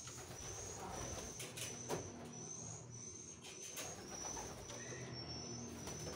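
Domestic pigeons cooing low, with a thin, high-pitched peep repeating about twice a second over them.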